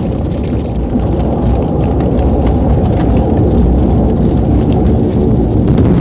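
Loud continuous rumble and rattle inside the cabin of an An-24 turboprop airliner as it moves across rough grass, with scattered sharp clicks from the shaking cabin.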